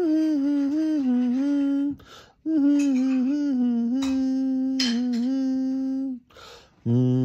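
A man humming a song's melody with his mouth closed, in long held notes that step gently up and down. The humming breaks off twice, about two seconds in and again near the end, before a new phrase starts.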